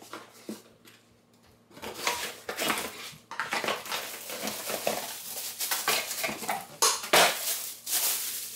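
Cardboard packaging and a plastic bag being handled as a toaster is unboxed: a run of rustling, crinkling and scraping handling noises that starts after a quiet second or two and is loudest about seven seconds in.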